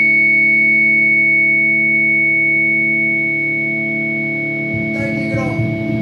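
Distorted electric guitar holding a sustained chord through effects, a steady drone that slowly fades. About five seconds in, a rougher low rumble comes in along with a short falling slide in pitch.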